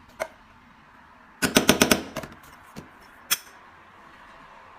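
A quick run of sharp metal clicks and taps from a windproof lighter under repair, about eight in half a second, with single clicks before and after.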